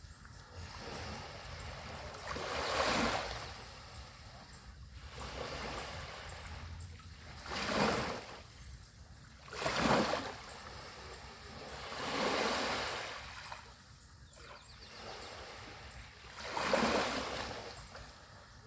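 Small sea waves breaking and washing up a beach, each wave a swelling rush every two to three seconds, the strongest about eight and ten seconds in and near the end.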